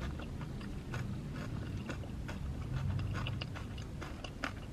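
Close-miked chewing of a mouthful of fried fast food, with many small wet mouth clicks.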